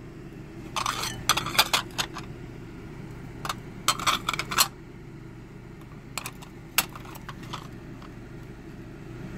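Ceramic teacup saucers clinking and scraping against each other as they are picked up and turned over, in three brief clusters of sharp clinks: about a second in, around four seconds, and around six to seven seconds. A steady low hum runs underneath.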